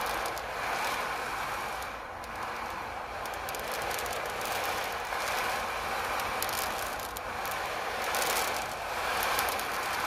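Ocean drum played by hand, the BBs inside rolling across the drumhead in a steady rushing wash that rises and falls in slow swells, meant to imitate ocean surf.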